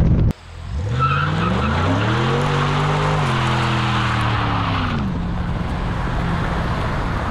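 2006 Ford Mustang GT's V8 revving up hard on a launch while the rear tyres spin and squeal with smoke, a wheelspinning fishtail start. The revs climb, hold, then fall away about five seconds in as the tyre screech stops.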